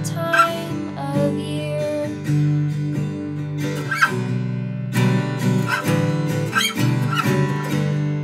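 Acoustic guitar strummed in slow chords with no singing, a solo passage of a gentle song.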